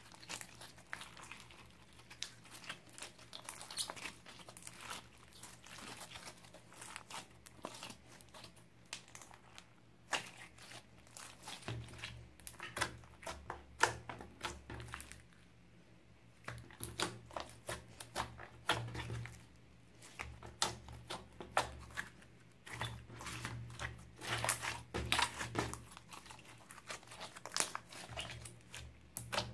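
Hands kneading, squeezing and poking thick glossy slime, a blend of store-bought and homemade slime, giving dense irregular sticky crackles and small popping clicks.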